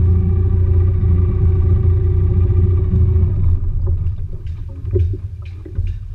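The RIB's outboard engine idling steadily, then shut off about three and a half seconds in once the boat is alongside. A few light clicks and knocks follow.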